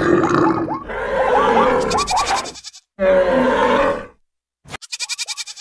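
Animal stampede sound effects: a dense mix of animal calls and grunts over running animals. A pitched bleat comes about three seconds in. After a brief silence, a fast, even patter of hoofbeats follows near the end.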